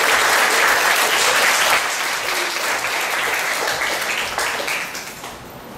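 Audience applauding at the end of a dance performance. The applause is loud at first, eases about two seconds in, and dies away near the end.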